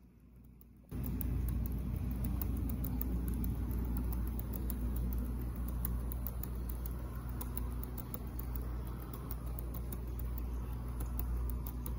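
Model train sleeping cars rolling past on sectional track: a steady low rumble and hum from the wheels, with a run of irregular sharp clicks as the wheels cross the rail joints, starting suddenly about a second in.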